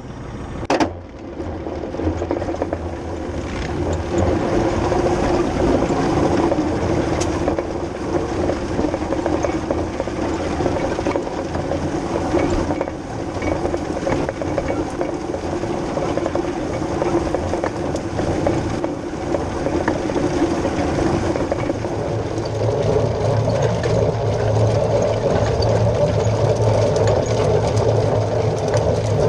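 Twin-rotor hay rake at work, its spinning rotors and tine arms clattering steadily as they sweep cut grass into a swath, with the towing Deutz Agrotron 120 tractor's engine running under it. A single sharp knock about a second in; the low engine note grows stronger near the end.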